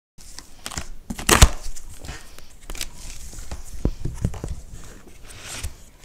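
Large cardboard shipping box being opened by hand: packing tape tearing along the seam and cardboard flaps crackling and knocking as they are folded back. The loudest sound is a sharp crackling tear about a second and a half in, followed by several knocks and rustles of cardboard.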